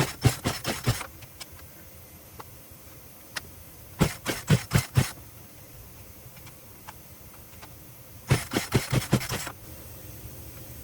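Poulan Pro 42 cc two-stroke chainsaw being pull-started three times, each pull turning the engine over in a quick run of five or six compression strokes without it catching: the saw won't start.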